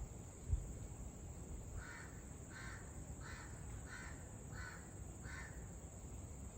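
A bird giving six short calls in a row, evenly spaced about two-thirds of a second apart, over a steady high-pitched drone. There is a single low thump about half a second in.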